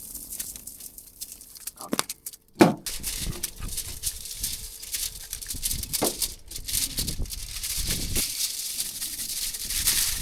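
Foil crinkling and rustling in irregular handling noises as a fish fillet is wrapped into a parcel for cooking on coals, with one sharp knock about two and a half seconds in.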